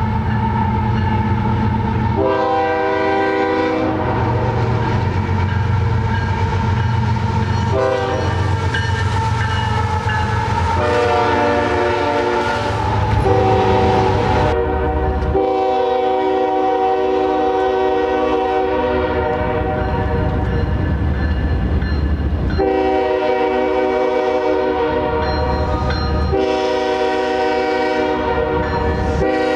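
Locomotive horn sounding a series of blasts over the continuous rumble of a passing train. Three shorter blasts come in the first half, then a long blast of about seven seconds and two more near the end.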